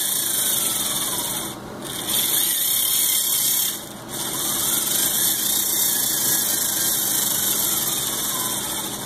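LEGO Mindstorms EV3 car's electric motors and gear train whining as it drives, the pitch gliding slowly as the motor speed changes. The whine briefly drops out twice, about one and a half seconds and four seconds in, where the motors pause.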